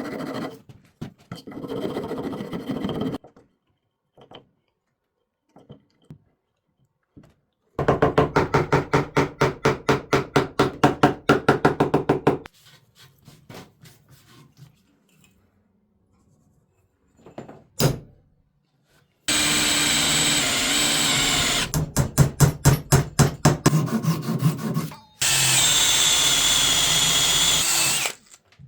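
Woodworking tools on wood in separate bursts: runs of rapid, evenly repeated strokes and knocks, one sharp single knock about two-thirds of the way in, and two steady stretches of a drill-like whirring near the end, with quick strokes between them.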